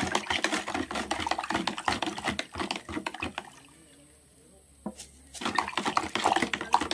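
Lemon juice being stirred with a plastic scoop in a plastic pitcher to dissolve the sugar: liquid sloshing with quick clicks of the scoop against the pitcher. It comes in two spells, with a pause of about two seconds in the middle.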